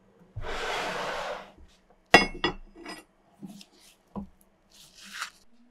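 A brief rushing hiss, then a rusty steel axe head clinking against a steel bench vise as it is set into the jaws: one sharp ringing metallic clink about two seconds in, two lighter clinks right after, and then a few soft knocks.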